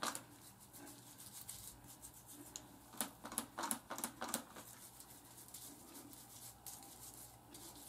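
Faint wet crackling and rustling of fingers massaging a lathered scalp and small locs, with short irregular crackles that bunch up around the middle.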